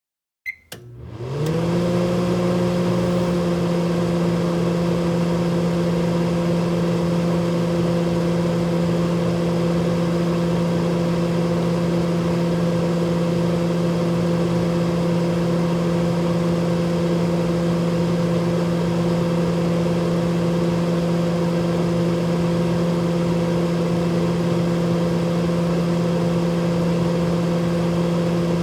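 Microwave oven switching on and running: a short click about half a second in, then a steady hum that rises as it starts and settles within a second or so.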